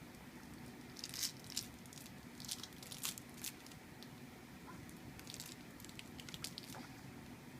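Scattered short crinkling and rustling noises over a low room background, in clusters about a second in, around three seconds, and again around five to six and a half seconds.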